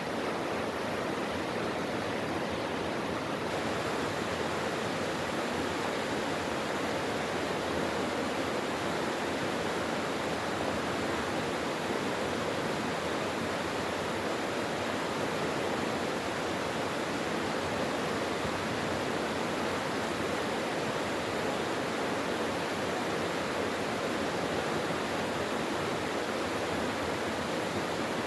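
A mountain stream rushing steadily over rocks, a constant even wash of water.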